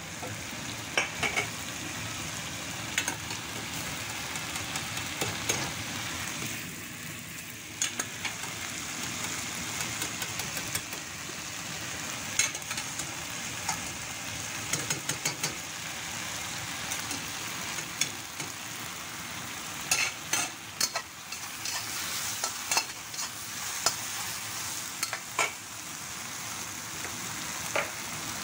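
Mushrooms and carrot sizzling as they are stir-fried in a hot oiled wok, with a spatula scraping and knocking against the wok in many sharp clinks.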